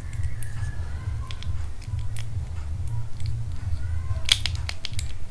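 Small clicks and taps of hard plastic action-figure parts being handled and fitted together, with a cluster of sharper clicks about four seconds in, over a steady low hum.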